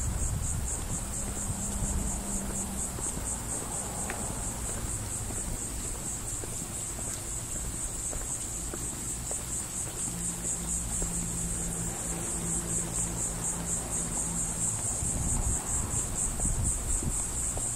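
A chorus of insects trilling, one high, steady, evenly pulsing buzz, over a low rumble.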